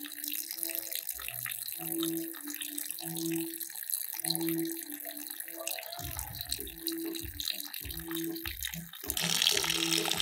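A thin stream of seawater runs out of a hole drilled in the bottom of a sailboat's lead-ballasted keel and splashes onto gravel, a sign that water has got inside the hull. A low tone pulses about once a second throughout, handling knocks come in about six seconds in, and the splashing grows louder near the end.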